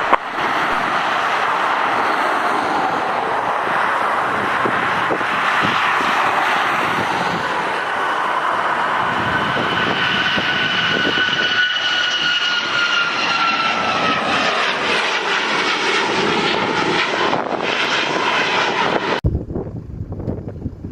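Airliner engines at takeoff power on the departure roll, a loud steady roar as the aircraft passes close by. A high whine in the engine noise drops in pitch about ten to fifteen seconds in as it goes past; the sound cuts off abruptly near the end.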